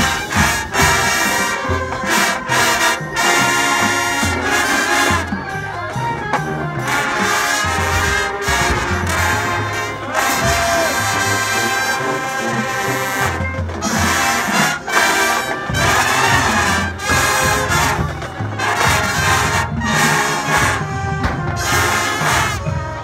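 Marching band playing loud brass-led music, with drum hits and percussion underneath.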